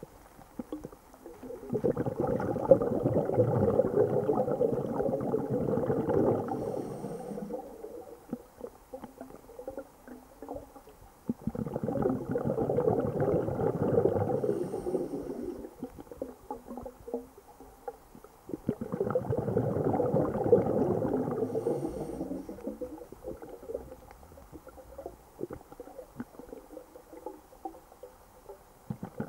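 A scuba diver's regulator exhaust heard underwater: three long rushes of exhaled bubbles, one every seven seconds or so, with quiet pauses for the in-breaths between them.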